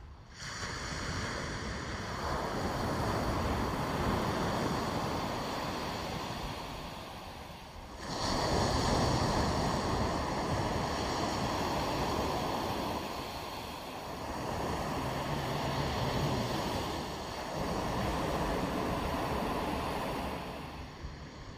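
Surf washing onto a sandy beach: a steady rushing noise that swells and eases in long surges, jumping up suddenly about eight seconds in.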